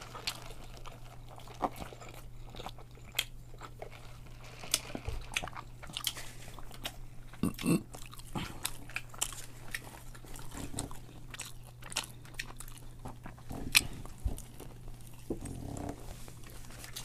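Close-miked eating: chewing and lip-smacking on Philly cheesesteak sandwiches, with many short irregular clicks and crunches. A steady low hum runs underneath.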